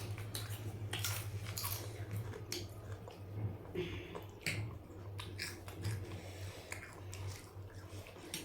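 Crunchy Akabare cheese-ball chips being bitten and chewed: irregular crisp crunches, over a steady low hum.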